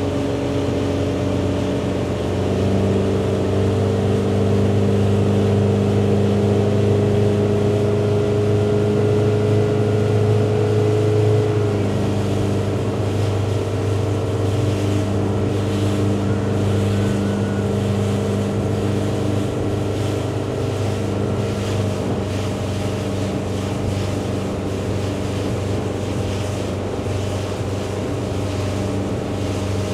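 Motorboat engine running steadily at towing speed, its pitch shifting a few times with the throttle, over a rush of wind and water.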